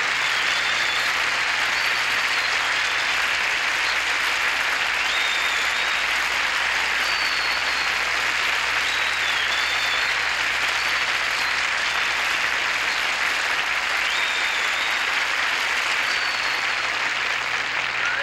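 Studio audience applauding steadily and at length after a musical number.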